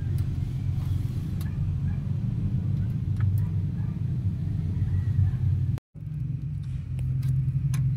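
A steady low rumble with a few faint clicks. It breaks off for an instant about six seconds in.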